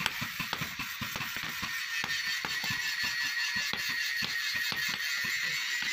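Hand-hammer blows on red-hot steel held in tongs on an anvil, forging a pickaxe into a hammer head. The strikes come about two to three a second, unevenly spaced, over a steady high hiss.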